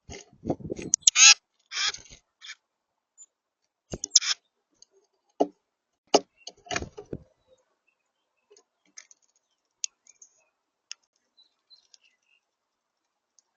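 A bird gives a few harsh, raspy calls in the first few seconds, mixed with scattered sharp clicks and taps. The sounds thin out to a few faint ticks in the second half.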